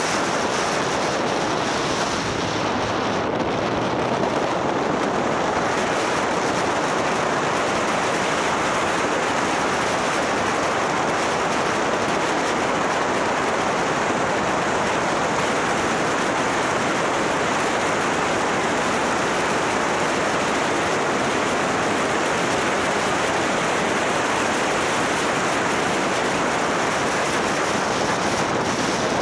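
Steady rush of wind and road noise from a motorcycle riding at speed on an open road, with no clear engine note standing out.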